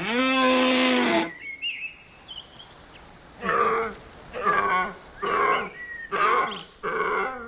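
Cattle mooing: one long, steady moo, then a run of shorter calls about once a second.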